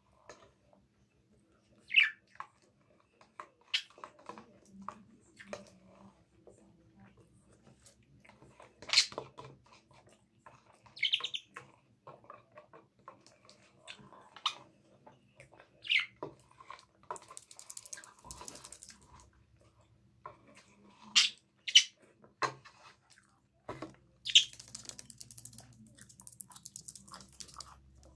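Pet budgerigar giving short, sharp chirps now and then, some falling in pitch, over faint spoon-and-dish clatter and eating sounds.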